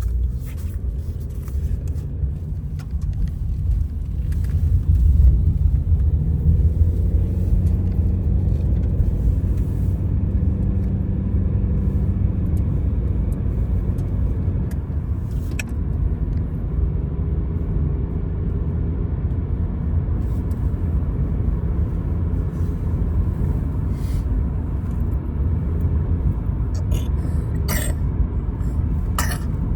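An engine running steadily with a low rumble, its note rising a little a few seconds in. A couple of short, sharp clicks come near the end.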